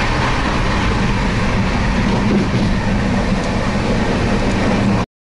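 Passenger train running at speed, heard from inside an AC coach near the door: a steady rumble and rattle of the wheels and carriage with a low hum. It cuts off abruptly near the end.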